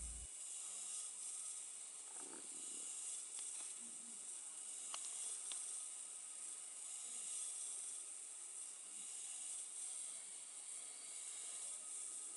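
Music cuts off right at the start, leaving a faint steady hiss with a couple of faint ticks about five seconds in.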